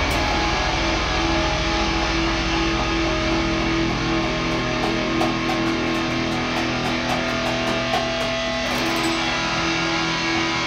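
Electric guitar and bass guitar playing improvised music together, long held guitar notes ringing over a low bass that thins out about halfway through.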